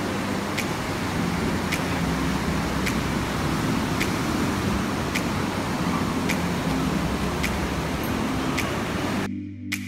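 Steady rush of ocean surf and wind on the microphone at the water's edge, with faint background music and a regular tick under it. The surf noise cuts off abruptly near the end, leaving only the music.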